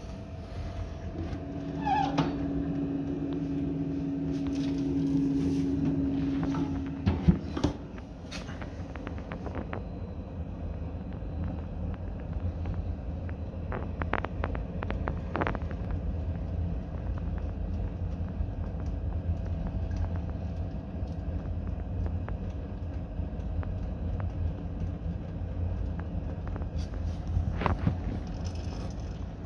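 A stove burning, with a steady low rumble from its fire and fan. A steady droning hum sounds for about five seconds early on, and a few sharp clicks and knocks come at intervals.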